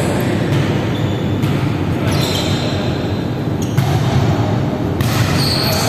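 A volleyball bouncing and being struck, several sharp knocks ringing in a large hall, over a steady background din.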